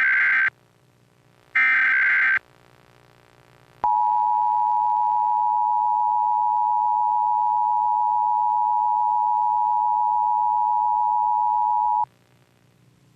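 Emergency Alert System tones: a short screeching SAME header data burst ends about half a second in and another sounds about two seconds in. About four seconds in, the EAS attention signal starts, a steady two-tone (853 and 960 Hz) held for about eight seconds before cutting off sharply.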